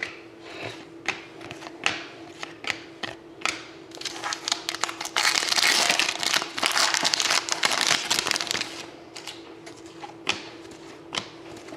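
Hockey card pack wrapper crinkling and cards being handled, with scattered clicks and a dense stretch of crinkling from about four to nine seconds in. A faint steady hum sits underneath.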